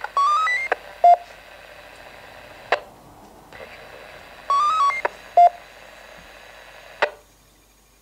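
A Uniden UBCD396T scanner receives an FM paging tone-out: a quick run of beeps stepping up in pitch, then one short lower beep. This comes twice, about four seconds apart, over steady radio hiss. A sharp squelch click follows each one, and the hiss cuts off after the second.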